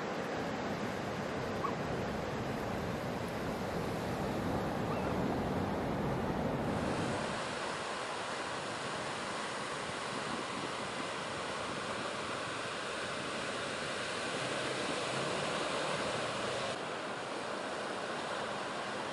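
Ocean surf breaking and washing on a beach break, a steady rushing noise. Its tone shifts abruptly about seven seconds in and again near the end.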